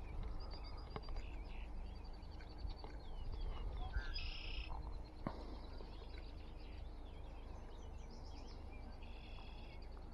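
Outdoor pond-side ambience: birds calling, short high chirps and trills with two buzzy calls about four and nine seconds in, over a steady low rumble.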